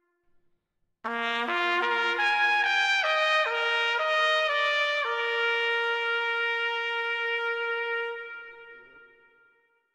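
Solo trumpet playing a bugle-call phrase on its natural notes. It starts about a second in, steps up and back down through several notes, then holds one long note that slowly fades away.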